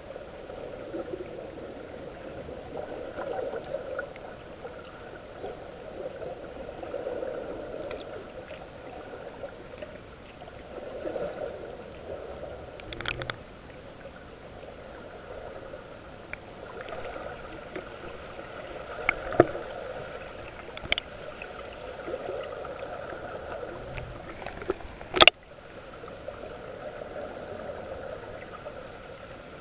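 Underwater noise heard through a GoPro Hero3+ in its waterproof housing: a steady, muffled wash of sea water, broken by a few sharp clicks or knocks, the loudest about 25 seconds in.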